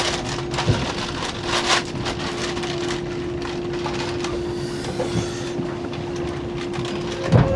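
Running sound of a 485-series electric express train heard from inside the car: a steady rumble of wheels on rail with a constant hum, and a few sharp knocks from the wheels over rail joints.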